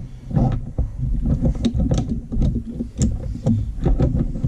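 Taking apart a plastic diaphragm water pump by hand: irregular clicks and knocks of plastic parts being handled and pried off, over a low rumble of handling noise.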